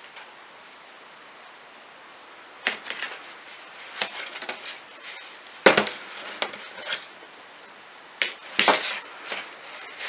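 Scattered clicks and knocks of metal knitting needles and a plastic yarn needle being handled, with short rustles as the yarn tail is drawn through the last stitches of a knitted mitten. The loudest knock comes a little past halfway.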